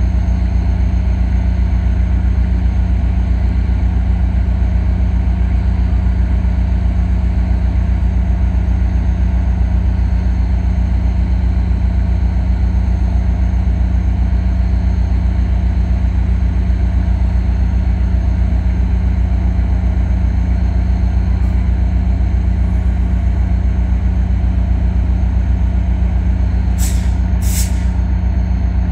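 EMD F40PH diesel-electric locomotive idling steadily while standing with its train, a deep engine hum. Two short hisses sound near the end.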